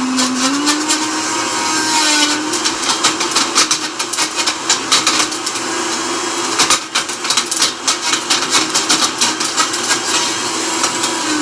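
Countertop blender motor running with an old mobile phone inside the plastic jug, the phone clattering and knocking against the jug and blades in rapid, irregular hits. The motor's hum rises slightly in pitch in the first second as it comes up to speed, then holds steady.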